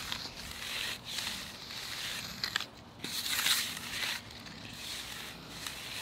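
Metal hand trowel scraping and swishing across a fresh concrete slab in repeated strokes, smoothing out float lines as the concrete sets up.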